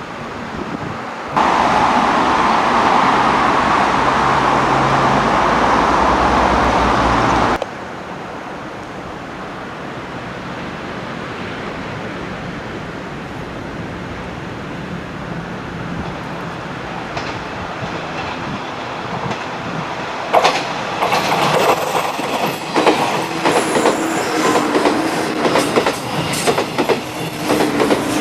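An electric train passing on the line: from about two-thirds of the way in, the wheels clack rapidly and louder over the rail joints as it comes through. Earlier, a loud steady rushing noise starts suddenly and cuts off abruptly, followed by a quieter background hum.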